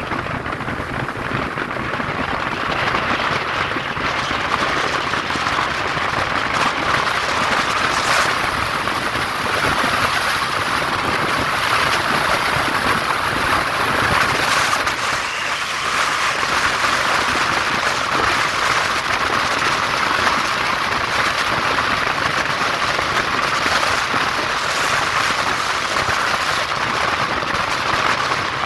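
BMW Z3 on the move: a steady rush of road and wind noise with no distinct engine note.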